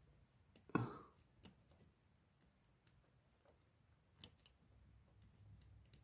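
Faint, sparse small metallic clicks of a thin core shim working against the warding and pins inside an antique Yale 905 1/2 push key padlock. The clicks come a few at a time, with a sharper one a little after four seconds, and there is a brief soft noise just under a second in.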